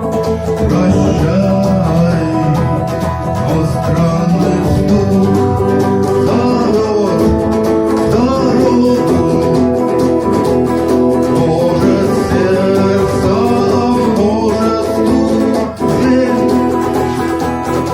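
Instrumental break of a rock song played on guitar: a melody line bending up and down over steady strummed or plucked chords.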